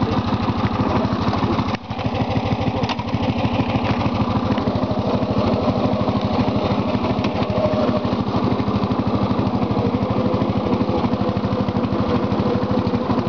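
Lawn tractor engine running steadily under way as the tractor drives across the yard, with a brief dip in the sound about two seconds in.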